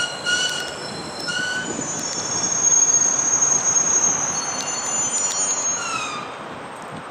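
JR Kyushu 811 series electric train running in and braking to a stop, with a steady high-pitched squeal from about two seconds in, loudest midway, and tones falling in pitch as it halts about six seconds in.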